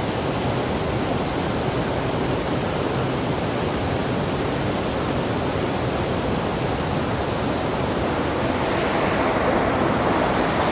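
Steady rush of water pouring over a small waterfall cascade.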